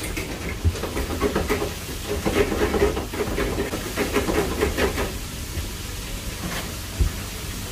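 Metal tongs clattering and scraping in stainless steel food trays, a quick run of clinks that stops about five seconds in, with a single knock near the end. Under it a steady hiss and low hum of the kitchen's frying and extraction.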